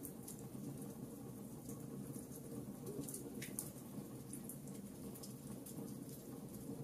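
Wood fire burning in a fireplace: a steady low rush of flames with irregular sharp crackles and pops from the logs.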